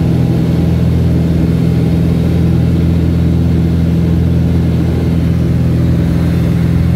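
Light airplane's engine and propeller running steadily at takeoff power as the plane climbs out after lift-off, heard from inside the cockpit as a loud, even drone.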